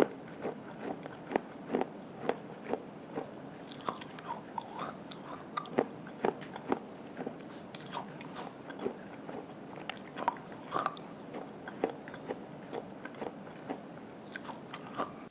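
A person biting and chewing hard, dry clay close to the microphone: a steady run of sharp, crisp crunches, a few every second.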